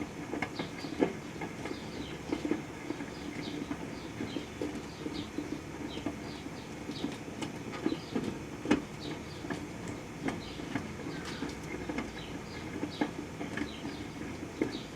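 Proctor-Silex microwave oven running with a steady hum, with irregular clicks and small pops throughout, as sugarcane heats inside.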